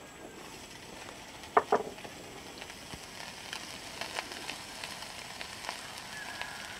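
Fish satays wrapped on lemongrass stalks sizzling over a small charcoal grill, a steady hiss with scattered small pops. About one and a half seconds in come two sharp clicks as a skewer is set down on the metal grate.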